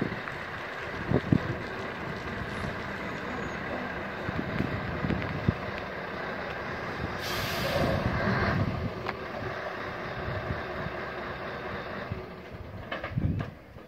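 Diesel engine of a heavy flatbed truck with a loader crane running as the truck moves slowly forward, with a short hiss of air from the air brakes about halfway through.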